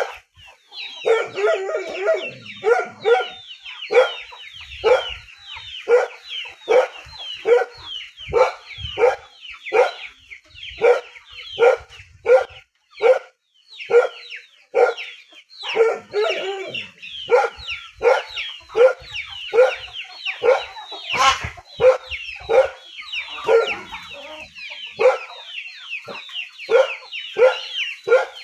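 Dog barking over and over in a steady run of short barks, each falling in pitch, roughly one to two a second.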